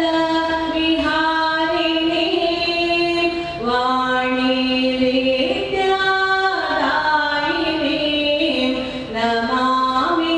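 A woman's voice singing a slow melody in long held notes that slide up and down between pitches, with brief breaths between phrases.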